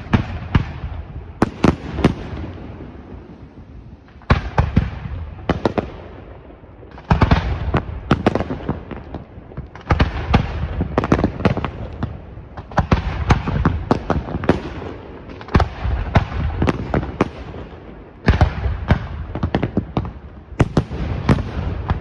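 Pirotecnica Senatore aerial fireworks display: clusters of shell bursts and sharp bangs come in volleys every two to three seconds, each followed by a rumbling echo that fades before the next volley.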